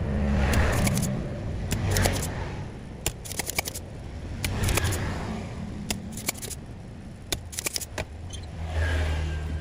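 Spring-loaded desoldering pump being cocked and fired on a circuit board, with a series of sharp clicks and snaps and short swells of hiss, as a shorted power transistor is desoldered from a car amplifier.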